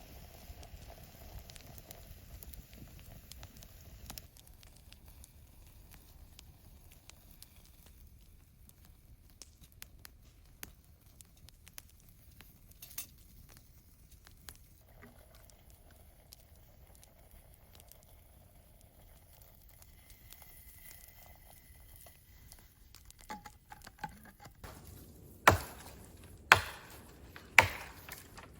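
Faint scattered crackling and small clicks, then three loud, sharp knocks about a second apart near the end.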